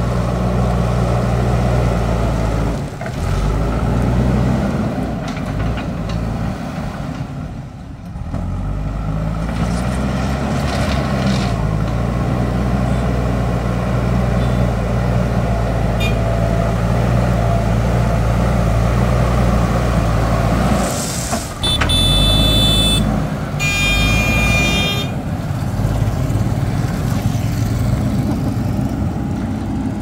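JCB backhoe loader's diesel engine running as the front bucket pushes and levels gravel, its pitch shifting up and down about a third of the way in. About three-quarters of the way through, a vehicle horn sounds twice, each blast lasting a little over a second.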